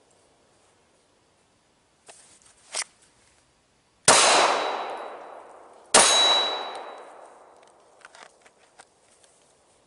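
Two pistol shots about two seconds apart, each followed by a long echo fading over a couple of seconds and a brief high-pitched ring.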